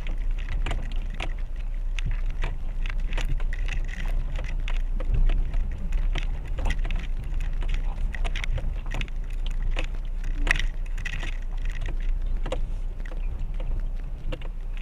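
Renault Duster creeping over a rocky dirt track: a steady low rumble with frequent, irregular sharp clicks and knocks of stones under the tyres and against the car.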